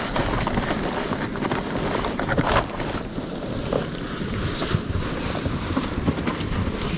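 Blizzard wind gusting and buffeting the microphone: an unsteady rushing noise over a low rumble.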